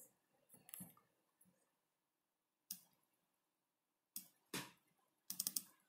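A few soft computer mouse clicks and keyboard keystrokes, spaced apart with near silence between, ending in a quick run of several keystrokes.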